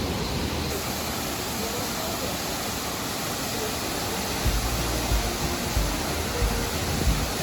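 Steady rushing noise under soft background music; a low, regular beat comes in about halfway through.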